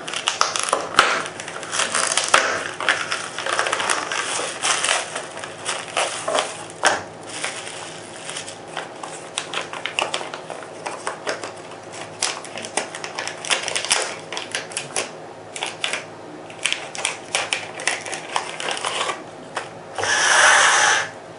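Product packaging being opened and handled by hand: an irregular run of rustling, crackling and clicking, with a louder rustle lasting about a second near the end.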